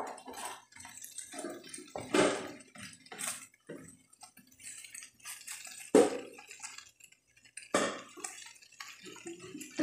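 Wooden spatula scraping and knocking against a skillet as beef strips and bell peppers are stir-fried, in irregular strokes; a sharp knock about six seconds in is the loudest.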